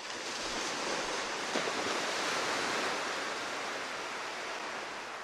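Rushing wash of ocean surf that starts suddenly, swells toward the middle and then slowly dies away.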